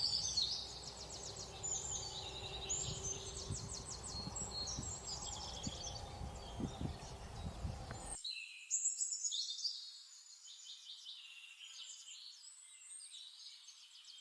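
Small birds chirping and trilling, quick repeated high notes throughout. During the first half there is also a low background rumble with a few soft thumps, which drops out about eight seconds in, leaving only the birdsong.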